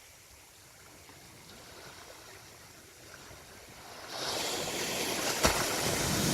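Sea waves on a beach: a faint wash at first, then about four seconds in a wave breaks and rushes in, loud and hissing, with a single sharp click partway through.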